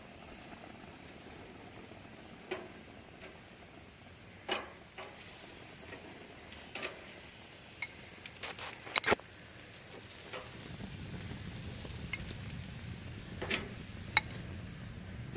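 Scattered clicks and knocks of utensils and shrimp being handled at a grill, over a faint steady sizzle of chicken cooking. A low steady rumble comes in about two-thirds of the way through.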